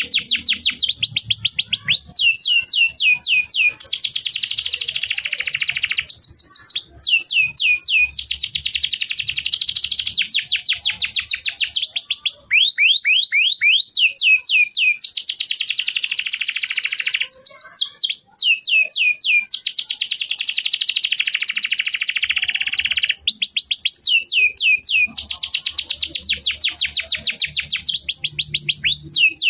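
Domestic canary in full, long song: fast trills alternating with runs of quick downward-sweeping whistled notes, phrase after phrase, with only a short break about twelve seconds in.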